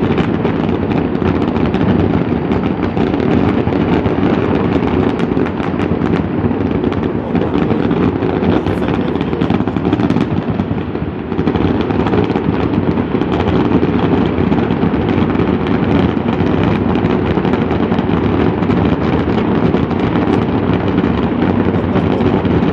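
A large fireworks display: a dense, continuous run of overlapping bangs and crackles, with a brief lull about eleven seconds in.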